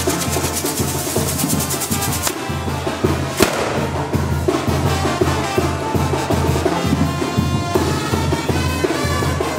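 Band music with a steady beat, over which a castillo's fireworks crackle rapidly for the first two seconds or so, then one sharp bang about three and a half seconds in.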